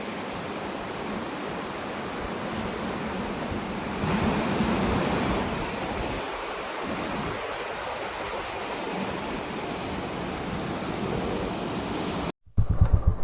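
Strong wind blowing hard, a steady rushing noise that swells for a second or so about four seconds in. Near the end it cuts off abruptly and gives way to louder, low buffeting.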